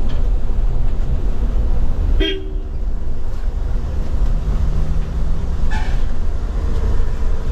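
Steady low rumble of road and wind noise in the cab of a KSRTC Olectra electric bus driving in city traffic, with no engine note. A vehicle horn honks briefly about two seconds in, and again more shortly near six seconds.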